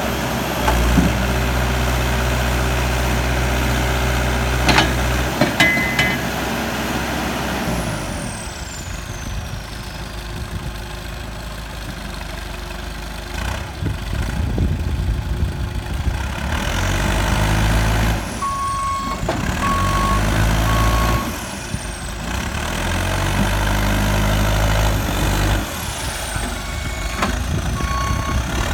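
JCB 215 skid steer loader's diesel engine running and revving up and down several times. A reversing alarm beeps in short pulses about two-thirds of the way through and again near the end.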